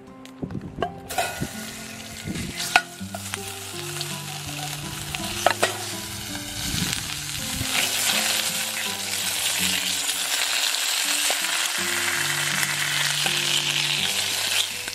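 Slices of canned luncheon meat sizzling as they fry in oil in a black iron pan, the sizzle starting about a second in and growing louder from about eight seconds, with a few sharp clicks in the first half. Background music with low notes plays underneath.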